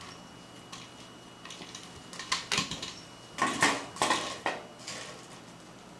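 Empty plastic Coca-Cola bottle batted by a cat, clattering and skittering over a wooden floor in quick flurries of light knocks and crackles, two main flurries around the middle.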